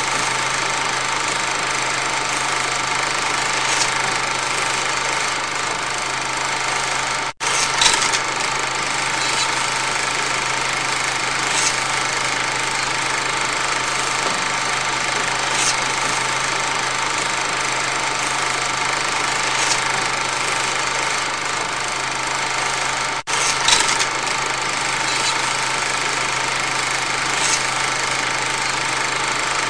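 A steady mechanical hum of a running motor, with a faint click about every four seconds. The sound cuts out for an instant twice, about a quarter and three quarters of the way through.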